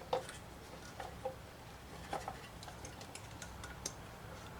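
Scattered light clicks and taps of hands handling small engine parts while setting an ignition coil's air gap, about half a dozen irregular clicks over a faint low hum.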